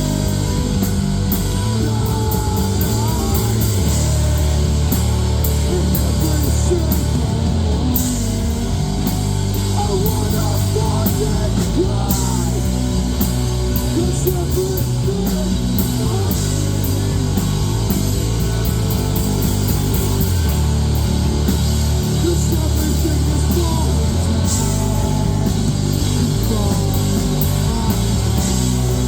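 Live rock band playing: distorted electric guitars, bass and a drum kit with steady cymbal hits, in a loud stretch of a song without lyrics.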